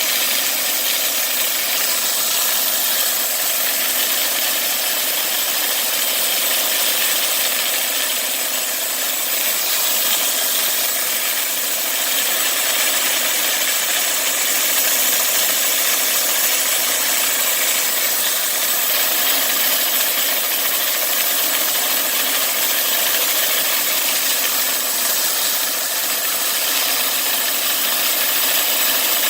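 Homemade bandsaw mill running steadily, its blade sawing through a black walnut log.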